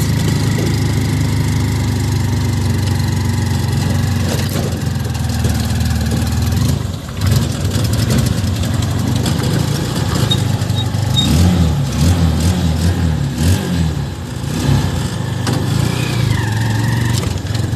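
Motor vehicle engine running while driving, with road and wind noise. The engine note wavers up and down about two-thirds of the way through as the speed changes.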